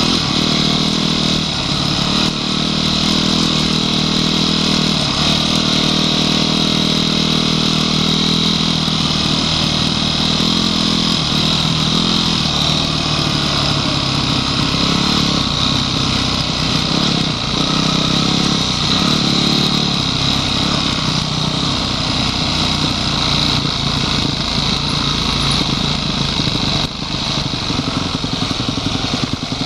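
Honda CRF250X dirt bike's single-cylinder four-stroke engine running under way on a trail, its revs shifting up and down, with other trail bikes riding close ahead.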